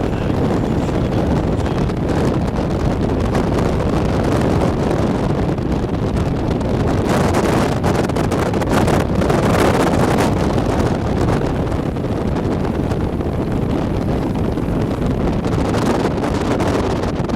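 Strong wind buffeting the microphone: a loud, steady rushing noise with no pitch, gusting a little harder about seven to ten seconds in.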